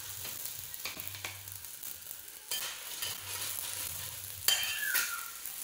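Oil sizzling in a hot pan under a frying chapati while a slotted spatula spreads the oil over the flatbread, with a few sharp scrapes of the spatula against the bread and pan.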